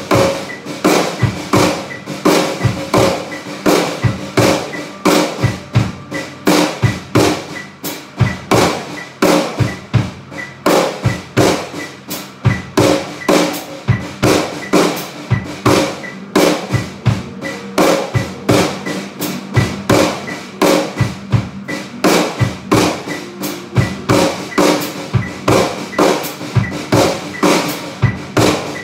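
Snare drum on a drum kit played with sticks, practising rudiments: a continuous, even pattern of fast strokes with regular accents, several hits a second.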